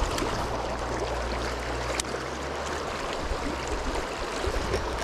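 Shallow creek water flowing steadily over rocks, a continuous rushing, with a single sharp click about two seconds in.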